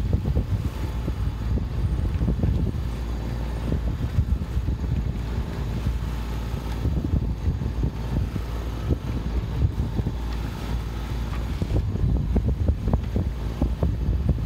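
Wind buffeting the microphone on the deck of a sailboat under sail, with the rush of water breaking along the hull.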